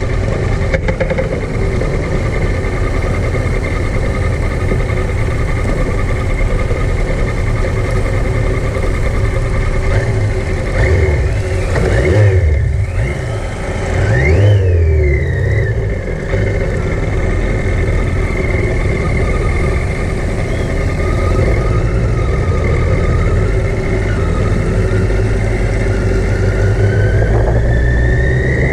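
Yamaha XJ900 motorcycle's inline-four engine running under way at speed. Its pitch dips and rises around the middle, then climbs steadily near the end as it accelerates.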